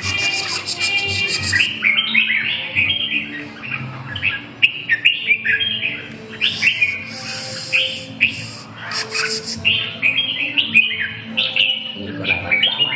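Red-whiskered bulbuls singing and calling back and forth, a busy run of short, quick whistled chirps, with two harsh hissing bursts at the start and in the middle.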